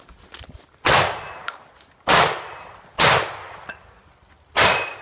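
Four handgun shots at irregular intervals of about one to one and a half seconds, each with a short echoing tail. The first comes just under a second in, after running footsteps on a dirt trail.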